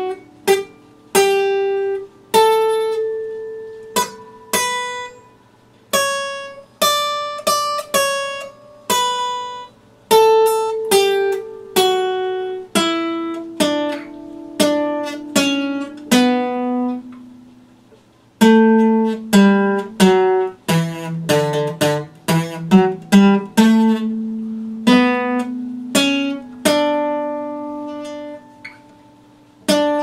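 Epiphone acoustic guitar fingerpicked: a slow melody of single plucked notes, each ringing out and fading. There is a short gap a little past halfway, then a quick run of notes.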